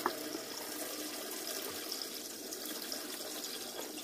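Engine coolant running steadily out of the 3.6L V6 as the water pump is unbolted, draining into a drip pan.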